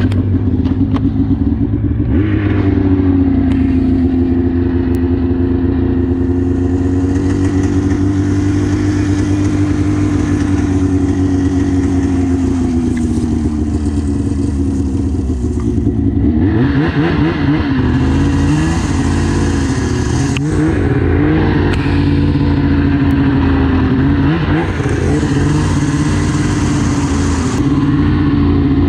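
2002 Arctic Cat ZR 800 Cross Country snowmobile's two-stroke twin engine running under way, its pitch holding steady and then falling and rising as the throttle changes. Stretches of rushing hiss come and go over the top.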